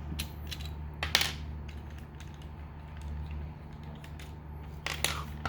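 Plastic parts of a Transformers action figure and its accessories clicking and tapping as they are handled: a few scattered clicks, the sharpest about a second in and two more near the end, over a steady low hum.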